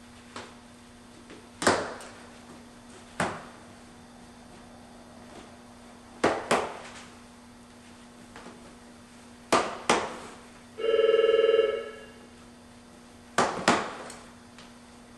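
Sharp plastic clicks and knocks, several in quick pairs, as rigid plastic comb spacers are set into a pleated furnace air filter. A single electronic ring lasting about a second comes near the end, over a faint steady hum.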